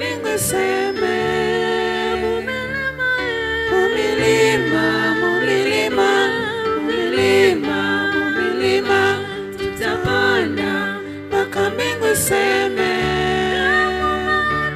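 Gospel worship song: a sung voice over instrumental accompaniment, with held bass notes that change every second or two.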